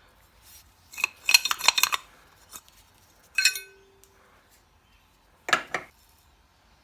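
Metal pieces clinking and clattering: a quick flurry of clinks about a second in, a short clink with a brief ring at about three and a half seconds, and a couple more clinks near the end.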